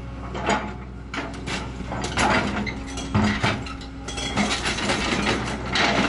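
An excavator tearing into the steel body of a scrap bulldozer: irregular creaking, scraping and clanking of metal, louder bursts a couple of times, over the excavator's steady engine.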